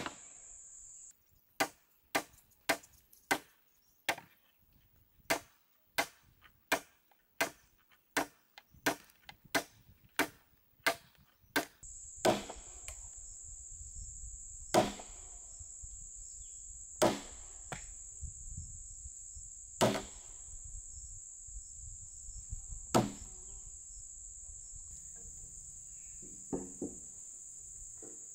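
Heavy hand-tool blows on a wooden post and log beam: a quick run of about two strikes a second, then slower single blows a few seconds apart. A steady high insect drone sounds behind the later blows.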